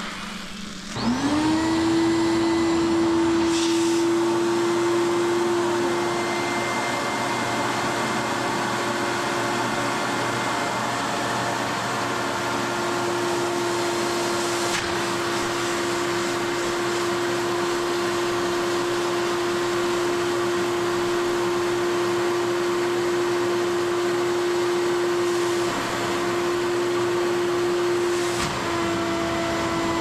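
An electric vacuum suction motor starts about a second in, its pitch rising quickly to a steady hum with a rushing hiss, drawing water out of a freshly formed wet washi sheet laid on felt.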